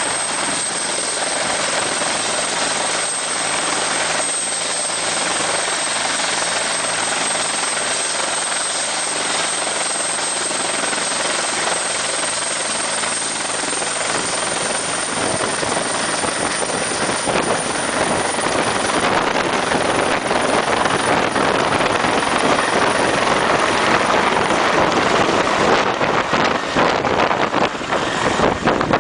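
Helicopter turbine engine and rotor running steadily, with a thin high turbine whine that creeps slightly upward in pitch. The sound grows louder in the second half, with choppy buffeting toward the end.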